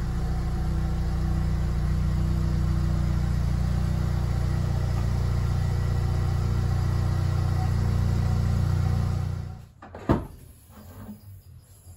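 2021 Ford Bronco engine running with a steady low drone as the truck reverses slowly. The engine cuts off abruptly about ten seconds in, followed by a single sharp click.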